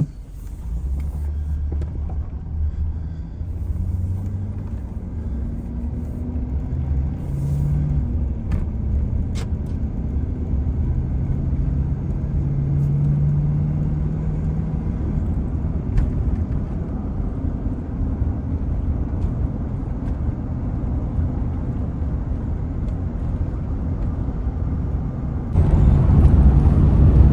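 A vehicle's engine and road rumble while driving. The engine note rises slowly as it picks up speed over the first several seconds, and the rumble gets louder near the end.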